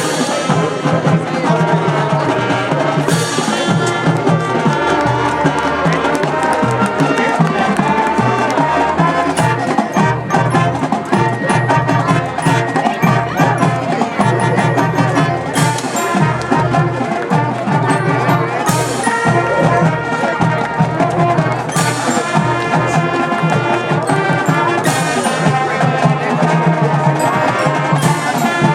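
High school marching band playing a full-band passage: brass with drums, and cymbal crashes every few seconds.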